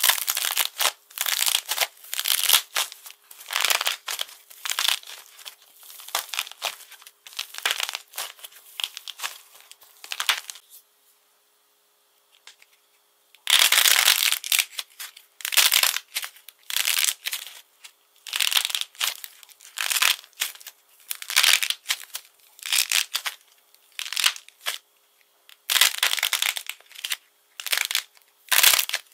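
Crisp crackling and crinkling as hands squeeze and break the hardened coating on soft clay, tearing the coating off in quick bursts. The crackling stops for about three seconds midway, then starts again on a second piece of coated clay.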